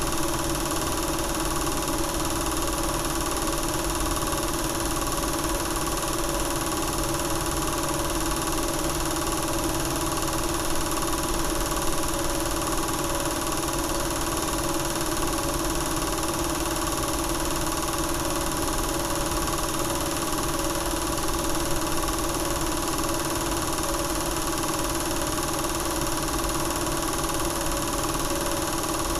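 Home-movie film projector running, a steady mechanical motor hum that does not change.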